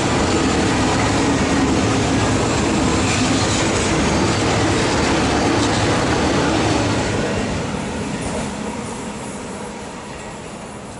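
Train of SBB passenger coaches running past close by, a loud steady rumble of wheels on rail. It fades away from about seven seconds in as the last coaches go by.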